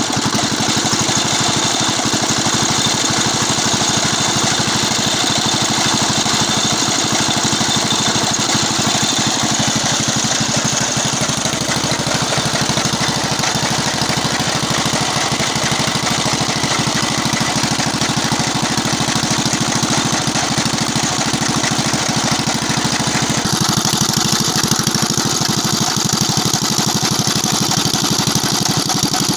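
F170 4 hp single-cylinder diesel engine running steadily, with a fast, even beat of firing pulses.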